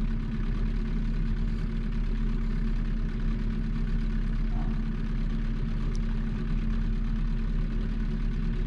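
Boat motor running steadily at slow trolling speed: a constant low hum with a steady drone.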